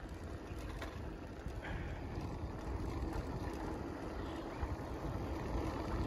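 Bike rolling along a concrete path: a steady low rumble of tyres and wind rush past the microphone.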